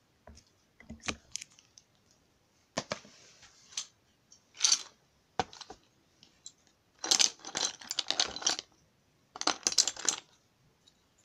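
Small hard drawing tools clicking and clattering against each other in irregular bursts as they are handled, with a dense run of clatter a little past the middle and a shorter one near the end.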